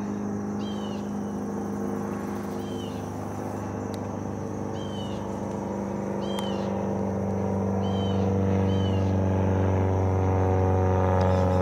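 A steady engine drone, likely a vehicle nearby, that grows louder over the last few seconds, with a bird's short chirps repeating every second or two.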